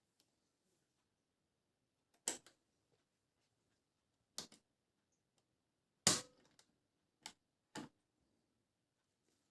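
Five sharp clicks and knocks, spaced one to two seconds apart, with the loudest about six seconds in; otherwise near silence.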